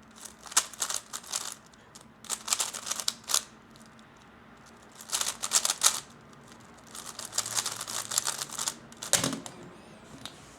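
3x3 Rubik's cube being turned fast: rapid plastic clicking of the layers in several bursts with short pauses between them. A single heavier knock comes about nine seconds in.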